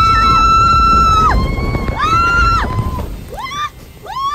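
A rider screaming on a log flume as the boat plunges down the drop: two long, high held screams, then short rising yelps near the end, over a low rush of noise that dies away about three seconds in.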